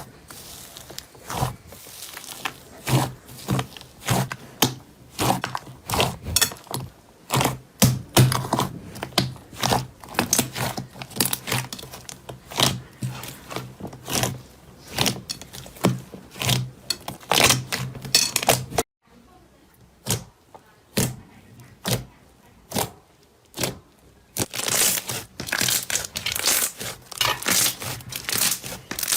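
Slime being squeezed and poked by hand, giving rapid, irregular crackling pops and clicks as air pockets burst. The sound drops off suddenly a little past halfway, then the crackling returns, brighter and hissier, near the end.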